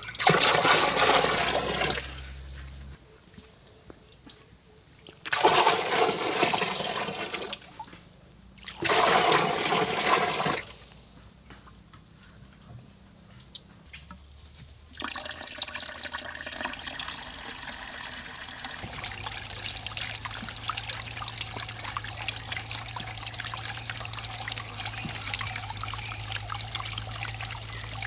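Water poured out in three loud splashing gushes of a second or two each. From about halfway, a steady trickle of water runs down a small rock waterfall and over a little water wheel into a pond.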